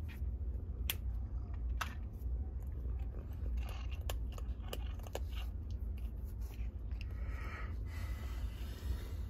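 A cat chewing dry kibble, with sharp crunches at irregular intervals. A steady low rumble runs underneath.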